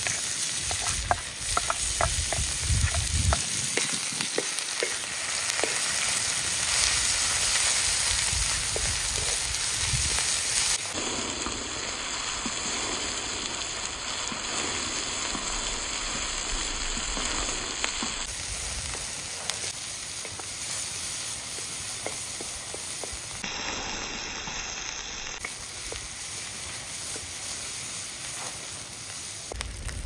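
Food sizzling steadily as it fries, with scattered light clicks and crackles in the first few seconds.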